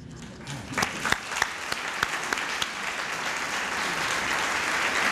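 Audience applauding. A few scattered claps come about a second in, then build into full, steady applause.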